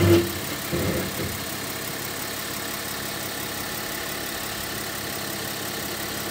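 Car engine idling as the car creeps forward slowly, with a short louder burst right at the start and another about a second in.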